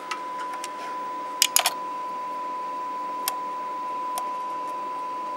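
A steady, even tone from the Kenwood TS-2000 transceiver as it receives the injected test-set signal. Sharp clicks of the camcorder being handled break in: three close together about a second and a half in, then single ones later.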